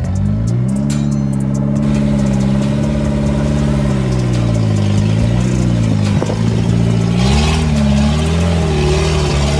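Suzuki Samurai off-roader's swapped-in Suzuki Swift engine revving hard under load as it drives out of water and up a muddy bank, its pitch rising and dipping with the throttle.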